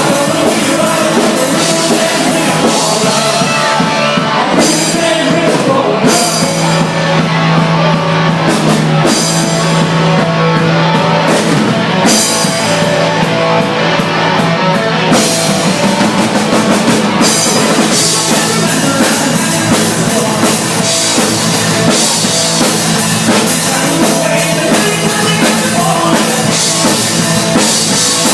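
Rock song playing loud and steady, with a driving drum kit and singing.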